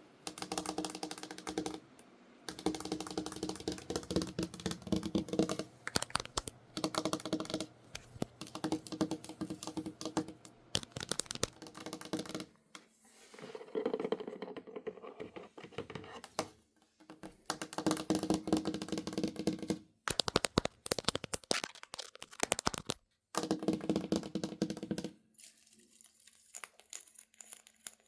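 Fast tapping on Halloween decorations and on the camera: dense runs of quick taps a few seconds long, broken by short pauses, turning to a few sparser, quieter taps near the end.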